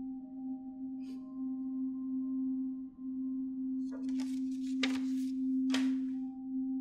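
Eerie horror-film score drone: a steady low hum held at one pitch, with faint higher ringing tones layered over it like a singing bowl. Between about four and six seconds in, three short noisy rushes cut through it.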